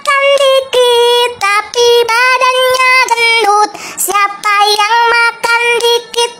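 A high-pitched voice singing a bouncy tune in short held notes that step up and down: a soundtrack song.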